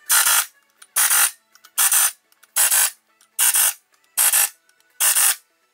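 Pneumatic impact wrench on a Honda K20 flywheel's bolts, firing in seven short bursts at an even pace, each about a third of a second long.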